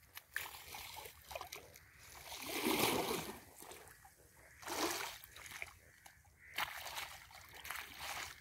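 Water splashing and sloshing in an irrigation ditch as a hoe digs wet mud in the flowing channel, in several irregular bursts, the loudest about three seconds in.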